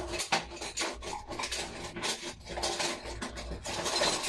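Kitchen utensil clinking and scraping against a bowl as chopped salad is tossed and mixed, in quick, irregular taps and rubs.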